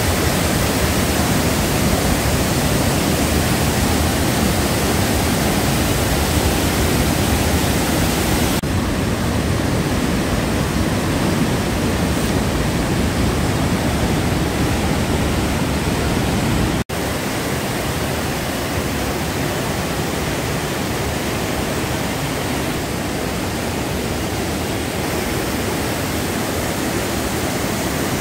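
Steady rushing of a white-water mountain torrent and waterfall in a narrow rock gorge, a loud, even noise. It cuts out for an instant about seventeen seconds in, then carries on slightly quieter.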